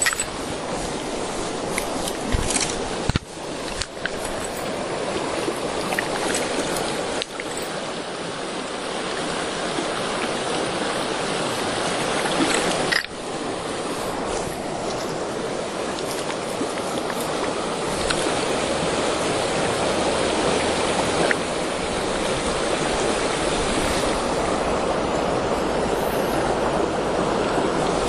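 Shallow mountain stream rushing and babbling steadily over stones, heard close to the water's surface. A few brief knocks sound over it.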